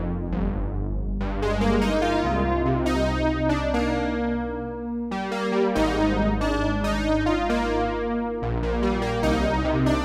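Arturia PolyBrute analog polyphonic synthesizer playing a library patch. Chords are struck with a bright attack that fades after each stroke, over held bass notes that change about every three seconds, with a brief drop-out of the bass a little past the middle.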